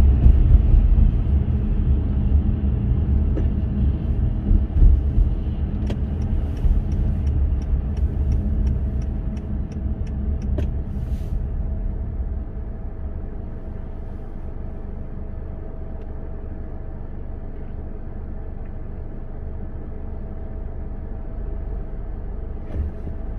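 Car driving in city traffic: a steady low rumble of engine and road noise that drops to a quieter level about halfway through. A run of evenly spaced light ticks, a couple a second, sounds in the middle.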